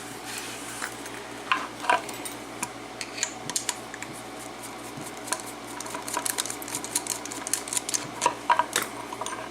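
Irregular metallic clicks and clinks of a just-opened padlock and lockpicking tools being handled, coming more often in the second half.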